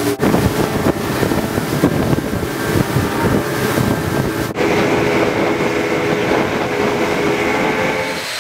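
Speedboat running fast on twin Yamaha 200 outboard motors: a steady engine drone under wind buffeting the microphone and rushing water. The engine tone stands out more clearly in the second half.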